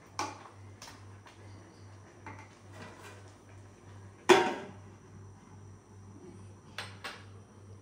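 Aluminium cookware knocking as a ladle and a wide lid are handled on a gas stove: light clinks here and there, and one loud metal clank with a short ring about four seconds in.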